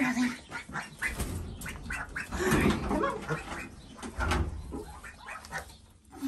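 Chickens clucking and milling about, with scattered short knocks throughout.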